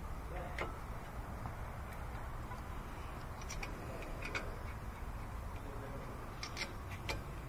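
A handful of light metallic clicks and taps as a front brake caliper is handled and fitted back over new brake pads, over a steady low hum.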